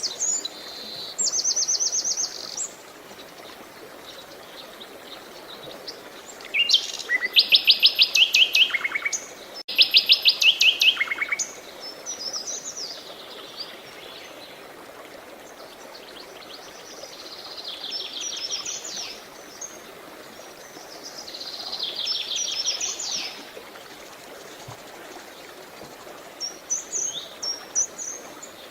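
Songbirds singing rapid, high trills in separate phrases every few seconds, the loudest two back-to-back trills about seven to eleven seconds in, over a faint steady rush of running water.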